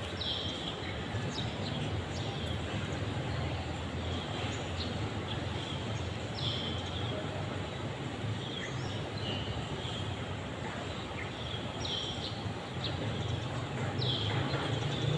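Open-air ambience: a steady low rumble of distant traffic or machinery, with short high bird calls every few seconds, each dropping in pitch.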